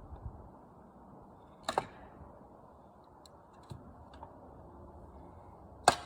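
Two sharp clicks or knocks, about two seconds in and near the end, with a few fainter ticks over a low, steady background noise.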